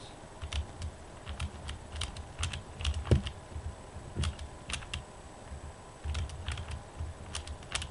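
Plastic clicking of a new QJ Pyraminx with a ball-bearing mechanism being turned by hand: many quick, irregular clicks as its layers are twisted, with low handling rumbles underneath.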